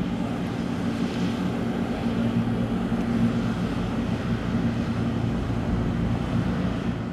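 Engine of a military rigid inflatable assault boat running at speed, a steady drone with the hiss of water rushing past the hull.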